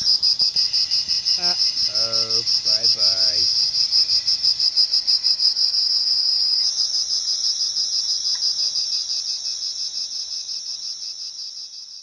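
Cicadas singing: a loud, high, rapidly pulsing buzz that shifts slightly in pitch about seven seconds in and fades away near the end.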